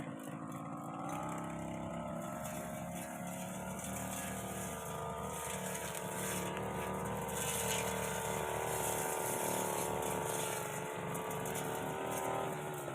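Petrol brush cutter engine revving up about a second in and held at high speed while its propeller-type blade cuts through a hedge, dropping in pitch near the end as the throttle eases.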